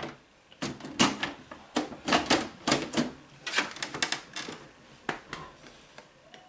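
Clatter from handling a metal computer tower case: a rapid, irregular run of sharp clicks and knocks.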